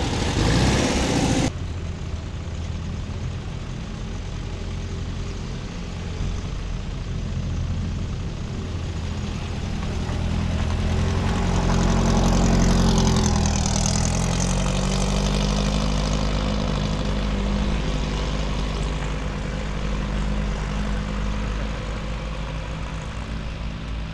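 Old Volkswagens driving off, engines running steadily. One passes close about twelve seconds in; it is loudest then, and its note falls as it moves away.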